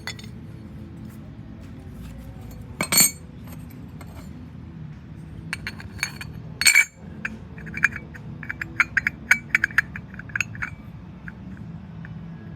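Hard items clinking against each other as they are handled: two loud ringing knocks, about three and about seven seconds in, then a quick run of lighter clinks.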